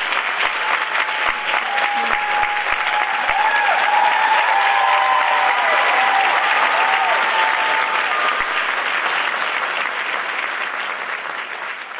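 Theatre audience applauding after a dance performance, with high shouts and calls over the clapping in the first part. The applause fades near the end.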